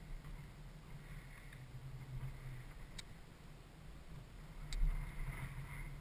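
KTM 530 dirt bike's single-cylinder four-stroke engine running at a low, steady hum, with two sharp knocks about three seconds in and again near five seconds, the second the loudest.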